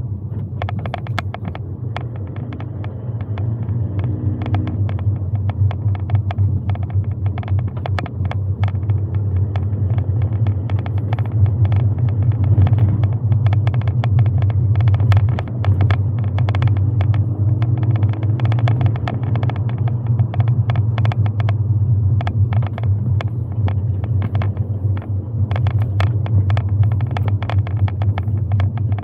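A car driving, heard from inside the cabin: a steady low rumble of engine and road noise, with frequent sharp clicks and ticks throughout.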